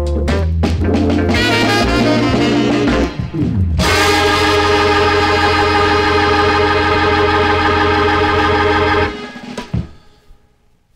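A Hammond organ jazz combo playing the last bars of a tune, then holding a long final chord on the organ from about four seconds in. The chord cuts off about five seconds later and the sound fades out to silence.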